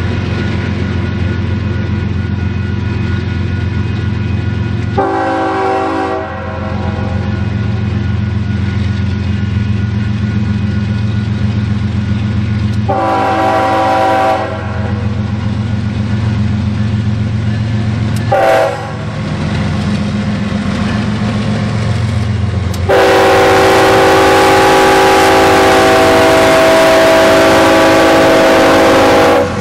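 Union Pacific GE C45ACCTe diesel locomotives sound a multi-tone air horn in the grade-crossing pattern: long, long, short, then a final long blast held for about six seconds, which is the loudest part. Under the horn, the lead units' diesel engines run with a steady low drone as they come past.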